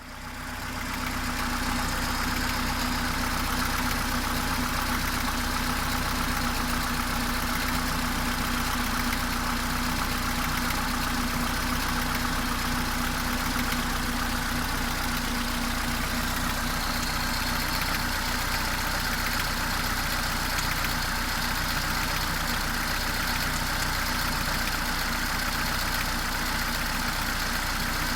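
Mercedes-Benz A-Class W168 1.6-litre four-cylinder petrol engine idling steadily, with a strong, periodic clattering on top of its valvetrain ticking. The clatter is a fault whose cause the owner is trying to find.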